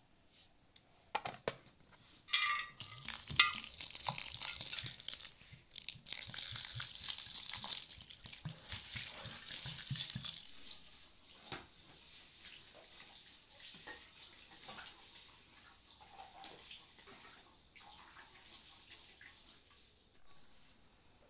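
Water poured in a stream into a stainless steel bowl of uncooked rice while a hand swishes and rubs the grains to wash them. The pouring is loudest from about two and a half seconds in to about ten seconds in, then gives way to quieter splashing. A few light clicks come before the pouring starts.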